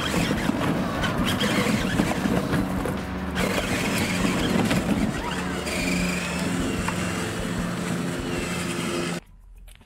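24-volt Grave Digger Power Wheels ride-on driving over loose landscaping rocks: its electric drive motors whine steadily while the plastic wheels crunch and rattle on the stones. The sound drops away suddenly near the end.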